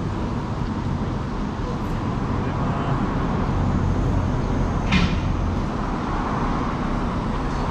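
Steady low rumble of vehicle engines and road traffic, with one brief high squeak about five seconds in.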